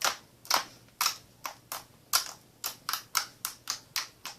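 Glitter slime being stretched and squeezed by hand, giving a quick, uneven run of sharp little clicks and pops, about three to four a second.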